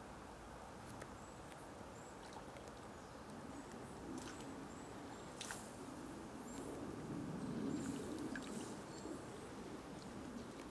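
Mute swans feeding in shallow lake water, with soft sloshing and splashing as they dip and lift their heads, growing louder about a third of the way in. Small birds chirp repeatedly in short high calls over it, with a few sharp clicks.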